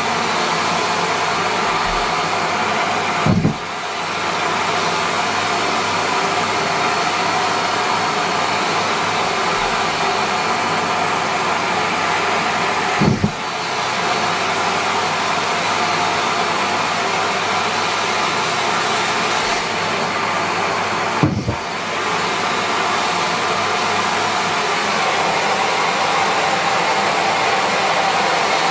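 Miele Complete C3 canister vacuum running steadily, broken three times, about eight to ten seconds apart, by a short low thump and a brief dip in its sound as socks are pulled into the nozzle.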